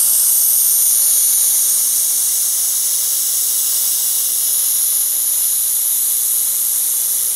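Handheld 1000 W fiber laser welder running an argon-shielded fillet weld on sheet metal with filler wire fed in, giving a steady, high hiss that starts and stops abruptly with the trigger.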